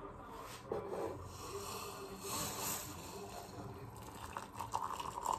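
Hot water poured into a ceramic mug, the stream growing louder from about four seconds in. A knock comes about a second in.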